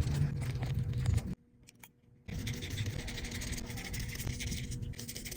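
Small clicks and scrapes of tools and iPhone parts being handled during reassembly, with a brief dead-silent break about a second and a half in.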